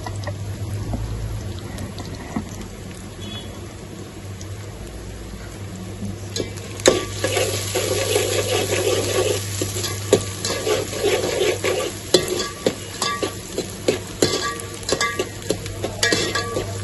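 Sliced onions with cumin seeds and bay leaves frying in an aluminium pot. They sizzle louder from about seven seconds in, while a steel spoon stirring them scrapes and clicks against the pot.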